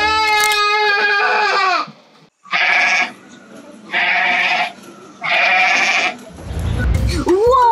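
Sheep bleating three times, each call under a second long and about a second and a half apart. A children's song plays at the start and cuts off about two seconds in; music comes back near the end.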